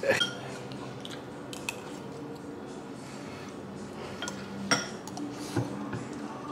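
Metal spoons clinking against ceramic bowls while eating, a few scattered sharp clinks with the loudest about two-thirds of the way in.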